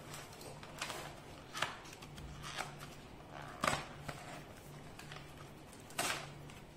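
Cardboard and plastic packaging of an L.O.L. Surprise toy box being pried and pulled open by hand: scattered crinkles and several sharp snaps, the loudest about four and six seconds in, over a faint steady hum.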